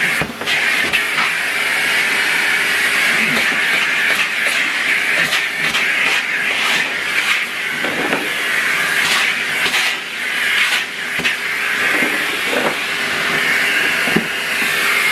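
Numatic Henry cylinder vacuum cleaner running steadily: a loud, even hiss of rushing air, with occasional small clicks and knocks.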